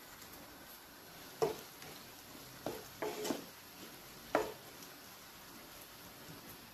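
Diced tomatoes and onions sizzling softly in oil in a non-stick pan. A wooden spoon stirs through them, with a few short scraping strokes about one and a half to four and a half seconds in.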